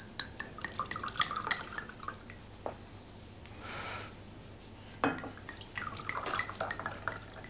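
Wine glugging from a bottle into a wine glass in two separate pours, the first at the start and the second about five seconds in.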